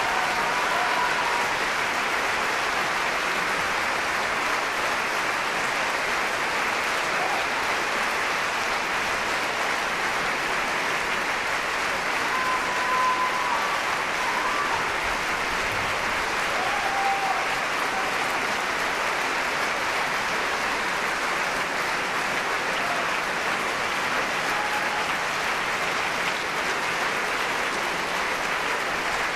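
Large theatre audience applauding steadily, a dense, even clapping.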